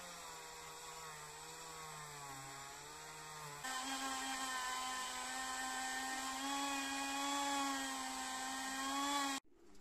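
Handheld rotary tool spinning a small brush against metal parts, a steady whine that wavers slightly under load. Its pitch jumps higher and louder about a third of the way in, and it stops abruptly near the end.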